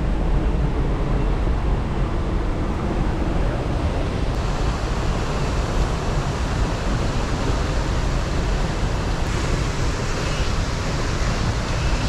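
Wind buffeting an action camera's microphone: a steady rushing noise with an uneven low rumble, heard while walking down a forest path.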